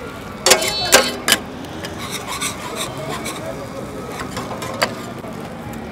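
Metal cooking utensils clattering and scraping while a burger is prepared: three sharp, ringing metallic clinks in the first second and a half, then lighter taps and scraping.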